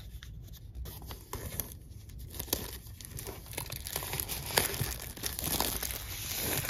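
Clear plastic seal tabs being peeled and torn off an Apple Pencil box, with crinkling of the thin film and a run of irregular small crackles. The loudest crackle comes about four and a half seconds in.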